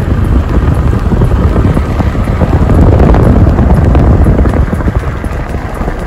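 Wind buffeting the microphone of a camera held out of a moving vehicle: a loud, gusty rumble over the vehicle's road noise. It eases a little near the end.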